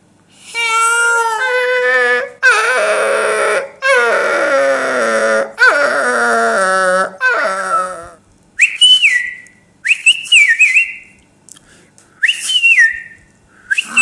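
A man imitating a dog with his mouth, howling and whining in long wavering calls for about eight seconds. Then come several short, high whistled calls that drop in pitch.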